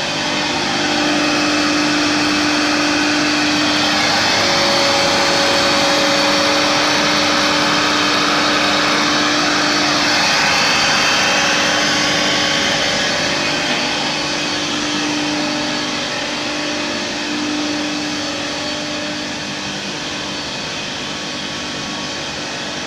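CNC router cutting a board, its spindle running with the dust-extraction blower: a loud, steady whirr and hiss with a held hum that comes and goes, easing slightly in the last several seconds.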